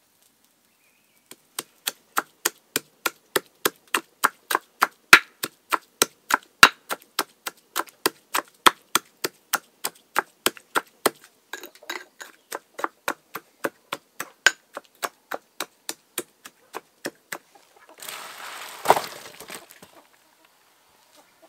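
Knife chopping rapidly on a wooden cutting board, an even run of about three to four chops a second that stops near the end, followed by a short scraping sound with one louder knock.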